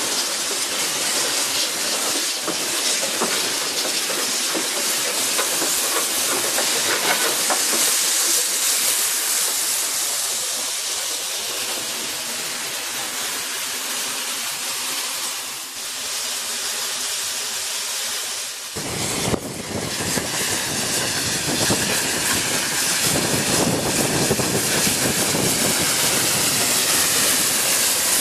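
Narrow-gauge steam locomotive hissing steam steadily, close by. About two-thirds of the way through, the hiss changes abruptly to a fuller, lower rush of steam.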